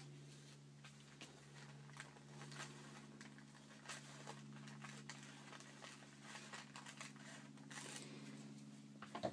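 Scissors cutting through a thin paper napkin: a run of faint, irregular snips, over a steady low hum.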